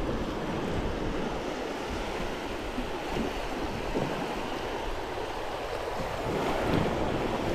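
Small surf waves breaking and washing up a sandy beach in a steady wash.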